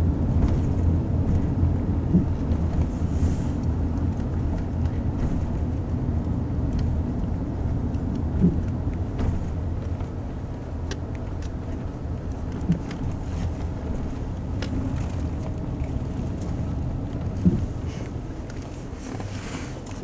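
Car interior noise while driving slowly: a steady low engine and road rumble with a few light knocks, easing off slightly near the end.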